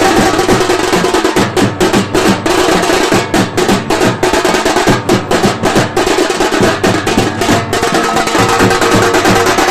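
Loud music of fast, dense drumming, with rolls and sharp rapid strokes.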